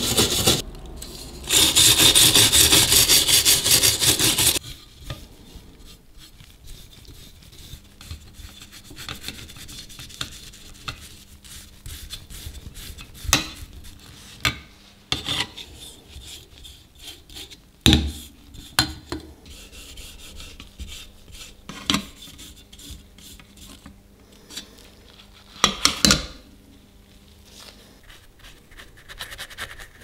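A spinning wire brush wheel grinds against the rusty ribbed metal body of an antique Peugeot Frères coffee grinder, stripping the rust. It runs in two loud stretches with a short break about a second in, and stops after about four and a half seconds. After that comes quieter hand brushing and rubbing on the metal, with scattered knocks of the parts being handled.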